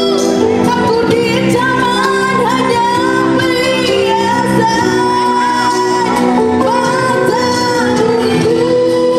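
A woman singing into a handheld microphone, with long held notes that waver in pitch, over instrumental accompaniment.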